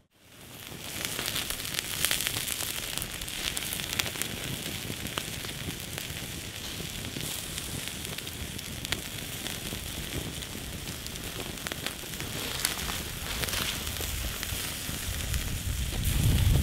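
Wood campfire burning with a steady hiss and scattered sharp crackles and pops, as bratwursts sizzle on a wire grill over the flames. The sound fades in from silence at the start, and a low rumble rises near the end.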